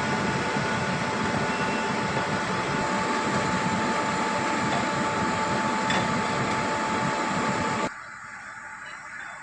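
Heavy construction machinery running steadily with a steady high whine over it. The noise cuts off suddenly about eight seconds in, leaving a quieter background hum.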